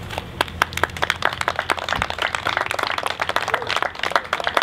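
A small group of people applauding, the separate hand claps clearly distinct.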